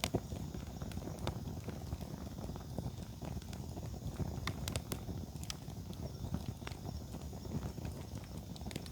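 Campfire crackling, with sharp pops and snaps scattered irregularly over a dense low crackle.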